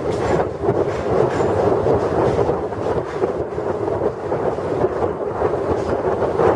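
Express train's coaches running over a steel truss rail bridge: a steady rumble of wheels on the bridge, with wind buffeting the microphone held out of the moving train.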